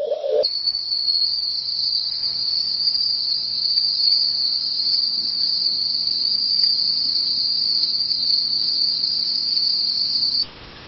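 Crickets or similar night insects trilling in one steady, unbroken, high-pitched chorus that cuts off sharply near the end.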